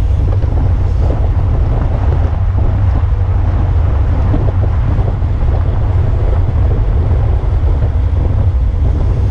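Wind buffeting the microphone of a bike-mounted camera while riding at race speed in a pack: a loud, steady low rumble.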